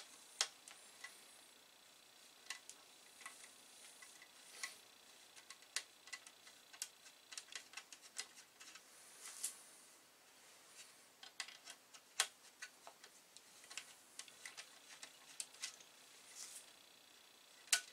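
Faint, irregular small metal clicks and ticks of a hand tool working the screws out of a computer motherboard's rear connectors, and of the loose screws being handled.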